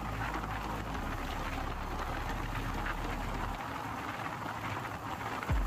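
Motorcycle riding along in fifth gear, heard from a camera on the bike: a steady rush of wind and road noise over the engine.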